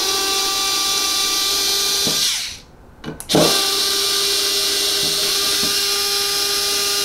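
Small Ryobi lithium cordless screwdriver with a T10 Torx bit, running steadily as it backs screws out of a resin vat's frame. It gives a steady motor whine for about two seconds, stops briefly, then runs again for the rest.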